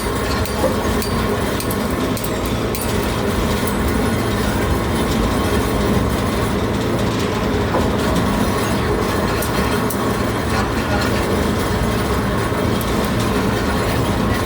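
Steady rumble and clatter of a passenger train rolling along the track, heard from on board.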